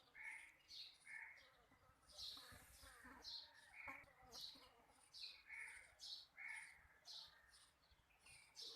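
Newly hatched Sussex chicks peeping faintly: a steady run of short, high chirps, a little under two a second, with a few lower calls mixed in.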